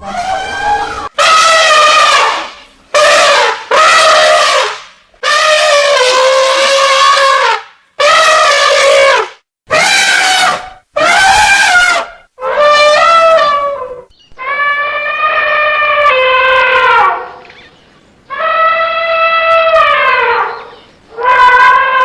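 Elephant trumpeting: a string of about a dozen loud, brassy calls, each lasting one to three seconds with brief pauses between, several sliding down in pitch as they end.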